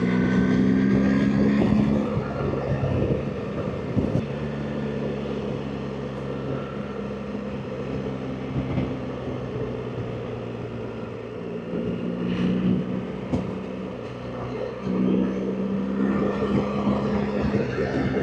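BMW R 1300 GS Adventure's boxer-twin engine running on the move, with wind and road noise. The engine note swells near the start and twice more in the last third as the throttle is opened.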